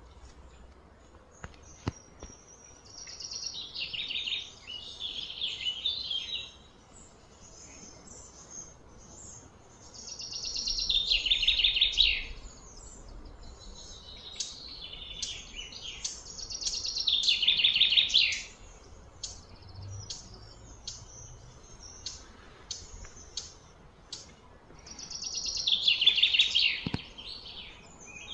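A bird singing: four loud phrases of rapid trilled notes, each about two seconds long and sliding down in pitch, repeated every six to eight seconds with fainter notes between.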